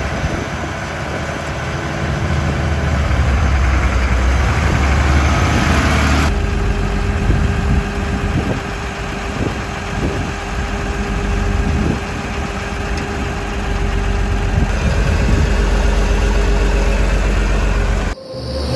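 International 1566 tractor's turbocharged six-cylinder diesel engine running steadily. It cuts off near the end.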